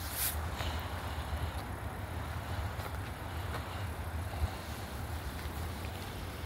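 A steady low rumble of vehicle noise.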